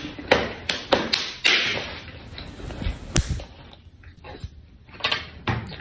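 A string of sharp, irregularly spaced clicks and taps mixed with a few short breathy hisses, with a quieter stretch about two thirds of the way through.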